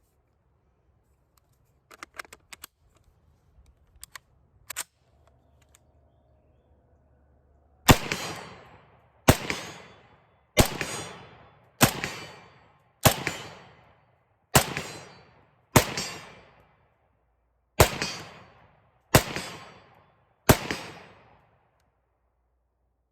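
Vz.52/57 semi-automatic rifle in 7.62×39 mm firing ten shots, steadily about one every second and a half, with a short pause after the seventh; each shot rings out and fades over about a second. A few light metallic clicks of handling come before the first shot.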